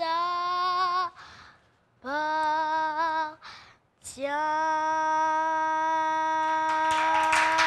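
A young girl singing a French worship song unaccompanied, in sustained phrases with short breaths between. The last phrase is a long held note starting about four seconds in. Clapping begins near the end.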